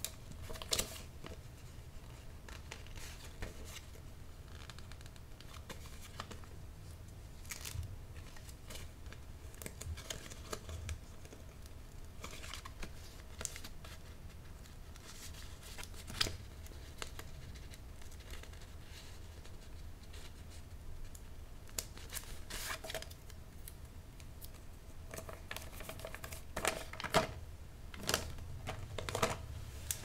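Hands wrapping a small gift in paper, close-miked: scattered crinkles, rustles and short crisp snaps of paper over a low steady hum, busiest near the end.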